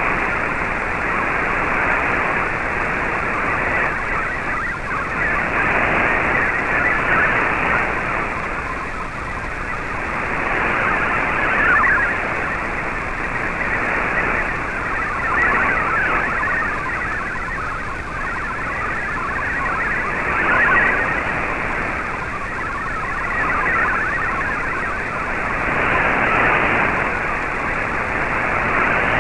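Shortwave MFSK64 digital data signal received in AM on an Icom IC-R8600: a fast, busy warble of data tones in static hiss, swelling and fading every few seconds as the shortwave signal fades.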